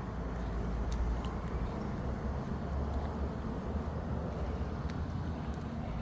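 Honda Africa Twin CRF1100's 1084 cc parallel-twin engine running steadily at idle, a low even rumble with no revving.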